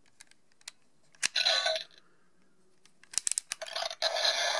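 Plastic clicks as a Yokai medal is seated in a Yokai Watch Model Zero toy watch, with a short electronic sound from the watch's small speaker after the loudest click. A few more clicks near the end, then the watch's speaker starts playing the medal's sounds.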